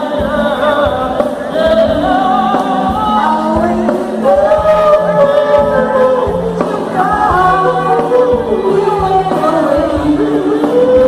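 A band playing a song, with a singer carrying the melody in long held notes over the instruments and a beat.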